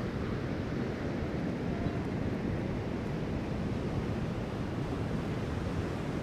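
Ocean surf breaking at a beach as a steady, even noise heaviest in the low end, mixed with wind on the microphone.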